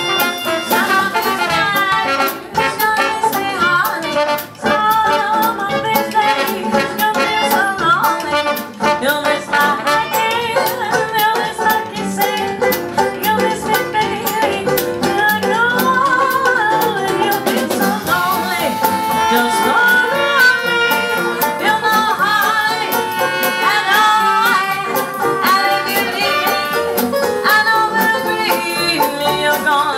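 A small live swing-jazz band playing, with banjo, double bass, drums and horns, while a woman sings.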